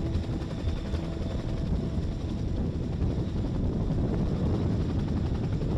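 Boeing CH-47 Chinook tandem-rotor helicopter hovering low over water, its rotors beating steadily over a rushing wash of noise.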